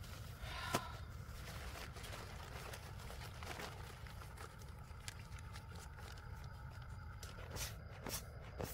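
Faint scattered taps, clicks and rustles of camping bedding being handled and laid out, a mattress and pillow, over a low steady outdoor background.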